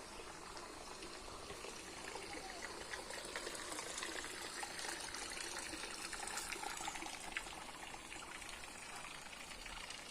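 Water splashing and trickling, with many small crackling drops, swelling a little in the middle.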